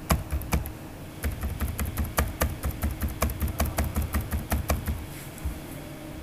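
Computer keyboard typing: quick runs of key clicks, about five a second with light thuds beneath, pausing briefly under a second in and stopping about five seconds in.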